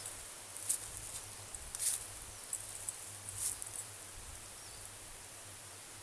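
Several short crunching rustles in dry pine-needle litter, irregularly spaced over the first four seconds, like footsteps through forest floor litter, over a steady low hum.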